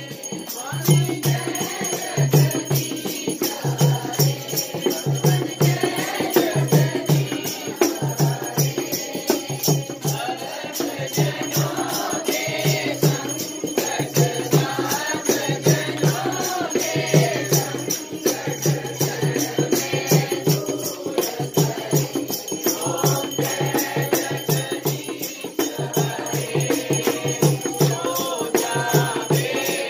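Group singing of an aarti hymn over the constant fast jingling of a chimta (iron tongs strung with jingles), with a regular low beat underneath.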